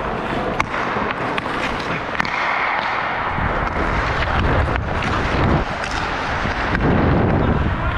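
Hockey skates scraping and carving on the ice as a player carries the puck up the rink, with a few sharp clicks of the stick on the puck. From about three seconds in, a heavy rumble of wind on the microphone builds as the skater picks up speed.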